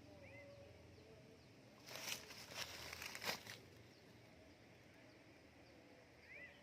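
Faint outdoor ambience with a few short chirps of small birds. About two seconds in comes a loud rustling burst, lasting about a second and a half.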